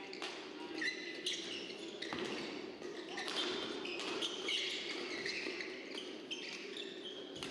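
Badminton players' court shoes squeaking on the court floor, with a few sharp taps, over the steady background noise of a large indoor hall.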